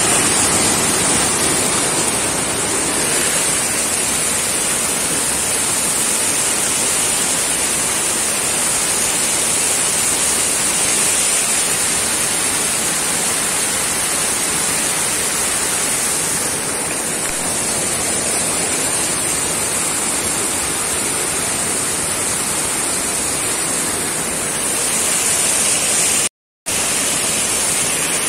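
Steady rush of water flowing in a ditch, cutting out for a moment near the end.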